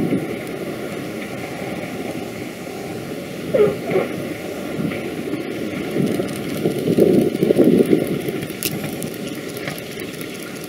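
North American B-25 Mitchell's twin Wright R-2600 radial engines running as the bomber passes low along the runway: a steady rumble that swells about seven seconds in.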